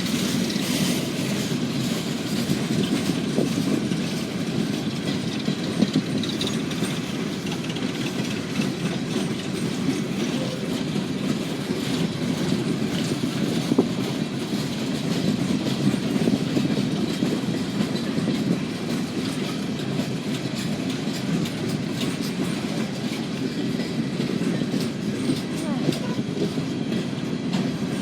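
Freight train cars rolling steadily past, steel wheels clicking over the rail joints.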